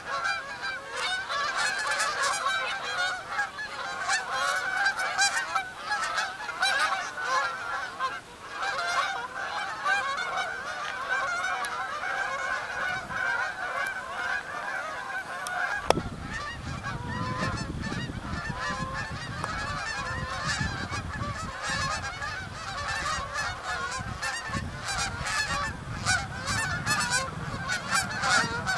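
A flock of Canada geese flying overhead, many birds honking at once in a continuous, overlapping chorus. About halfway through there is a sudden click, and a low rumble joins beneath the honking.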